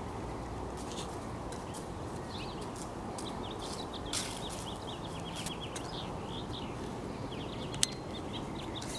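Small birds chirping in quick runs over a steady background noise, with one sharp click near the end.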